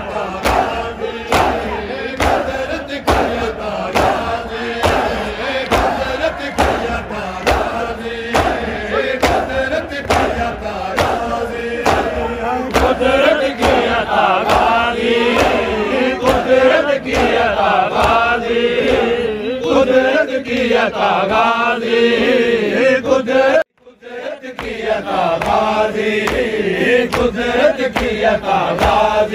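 A crowd of men chanting a Shia noha (mourning lament) in unison, kept in time by regular chest-beating slaps of matam. About four-fifths of the way through, the sound drops out for under a second, then resumes.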